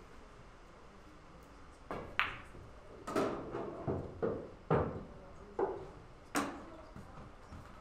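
Pool balls knocking together: an irregular series of about eight hard clacks over some four seconds, each ringing briefly.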